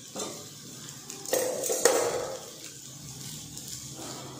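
A metal spoon stirring and scraping cooked rice around a stainless steel pan, with a sharp clink of spoon on pan about two seconds in.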